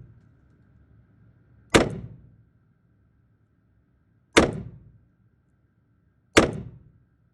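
.38 Special revolver with a 4-inch barrel fired three times, about two seconds apart. Each shot is a sharp crack with a short echoing tail.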